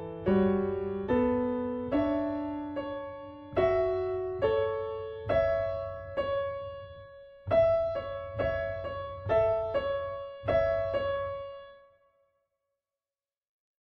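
Solo piano music: slow, separate notes and chords, each ringing and dying away, with the piece ending on a last note that fades out near the end.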